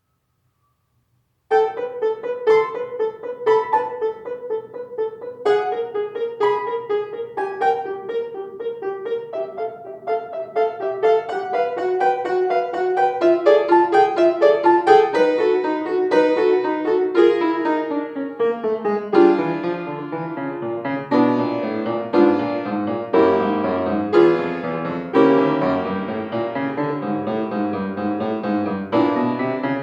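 Solo piano playing after about a second and a half of silence: repeated notes in the middle register, joined about halfway through by a lower moving bass part.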